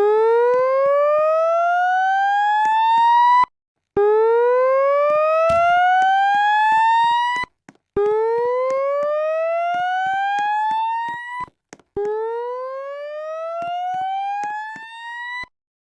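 Fire alarm voice-evacuation speakers sounding the slow-whoop evacuation tone: four loud rising sweeps, each about three and a half seconds long, with short gaps between them. This tone alternates with the recorded fire announcement during an alarm test.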